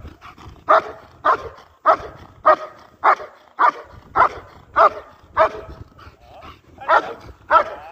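German shepherd barking at a bite-sleeve helper in protection work, a steady train of short barks a little under two a second, with a brief pause near the end.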